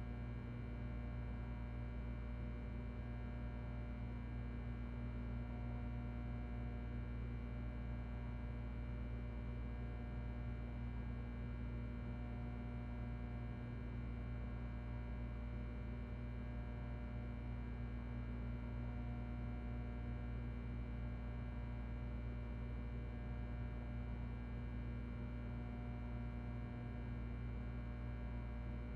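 Steady ventilation fan noise with a constant low electrical hum and faint higher tones, unchanging throughout.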